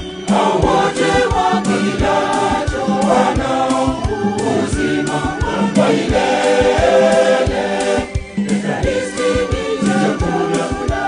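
Church choir singing a Swahili hymn in harmony over a steady beat, with a brief break about eight seconds in.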